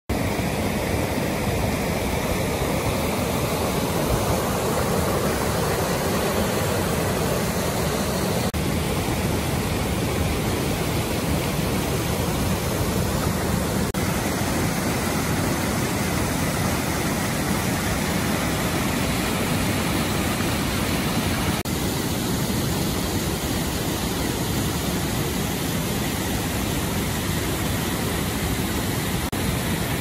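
Steady rushing of creek water tumbling over rock riffles, cascades and a small waterfall. Its tone shifts slightly a few times.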